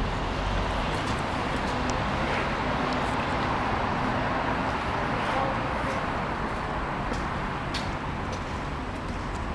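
City street traffic noise: a steady hum of passing vehicles that swells a little around the middle.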